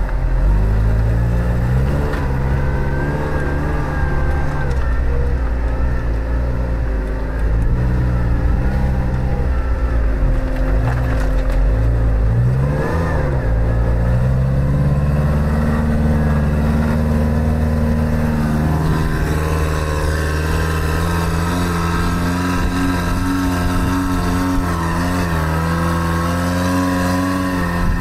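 109-horsepower engine of a karakat all-terrain vehicle, heard from inside its cab while driving. Its pitch rises and falls for the first dozen seconds, then holds fairly steady at higher revs.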